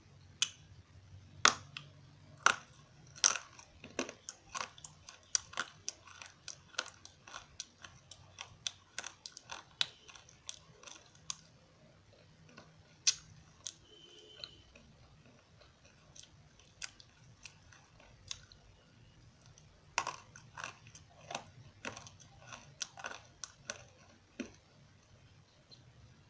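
Crunchy edible eko clay being bitten and chewed as a run of sharp crunches. They come thick and fast for the first ten seconds or so, thin out for a while, then come in another burst about twenty seconds in.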